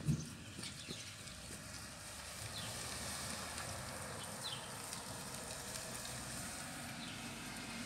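Distant thunder rumbling low and steady under wind, swelling slightly a couple of seconds in, with a few faint bird chirps. A brief thump comes right at the start.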